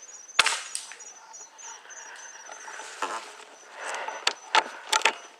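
A sharp click about half a second in, then rustling and a quick run of sharp clicks near the end, over a faint repeating high chirp.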